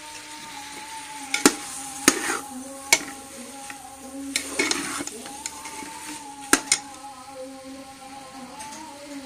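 Slotted metal spatula stirring potatoes and cauliflower in a metal pot: scraping against the pot with several sharp clinks of metal on metal, over a steady low hum.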